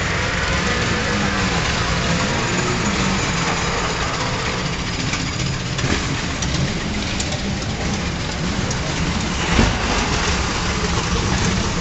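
Engines of early vintage racing cars running at low speed as they roll past, a steady low rumble with a coarse, crackly hiss over it. There is a single sharp crack about nine and a half seconds in.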